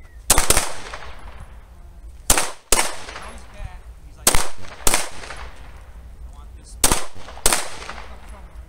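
Semi-automatic pistols fired by two shooters: about eight sharp shots, loosely paired and spaced roughly two seconds apart, each followed by a brief echo.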